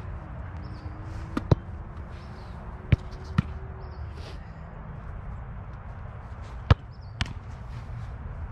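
Sharp thuds of a soccer ball being struck in a goalkeeper shot-stopping drill, six in all in three close pairs, the loudest near seven seconds, over a steady low outdoor rumble.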